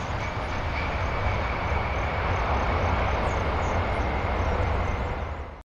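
Jet engines of a Boeing 747 airliner during its landing rollout: a steady rushing roar with a deep rumble and a thin steady whine. It cuts off abruptly near the end.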